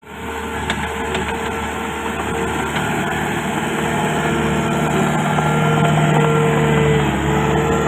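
Komatsu D31PX crawler bulldozer's diesel engine running steadily, growing slightly louder, with a few light clicks in the first three seconds.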